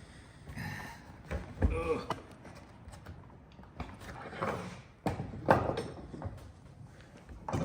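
Chisel paring the bottom of a wooden trench housing, with short scraping strokes and irregular knocks of tools and timber on the workbench.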